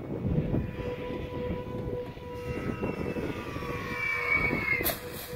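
RC flying-wing model plane making a fast low pass: a motor-and-propeller whine that rises in pitch as it comes in, then breaks off near the end as it passes.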